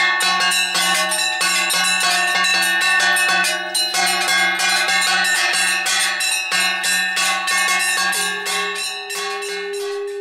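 Temple bells ringing rapidly and continuously, many strikes a second, over a steady droning tone that shifts up in pitch near the end.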